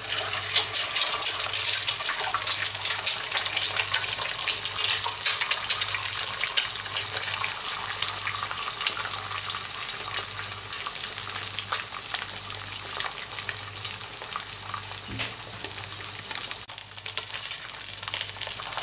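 An egg frying sunny side up in hot cooking oil in a frying pan: a steady, dense sizzle full of small pops and spits.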